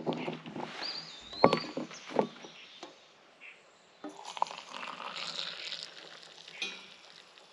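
Knocks, clicks and rustling of gear being handled, with a short bird call about a second in.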